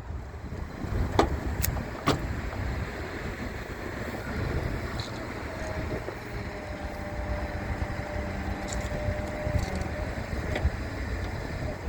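A few sharp clicks, then an electric switch machine motor whining steadily for about five seconds as it drives the points, over steady outdoor background noise.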